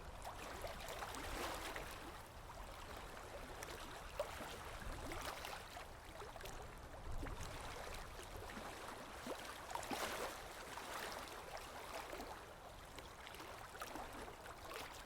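Sea waves washing in, a continuous rush of water that swells and eases every few seconds.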